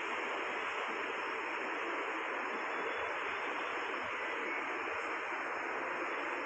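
A steady, even rushing noise with no distinct events, like air or machinery hum picked up by a phone microphone.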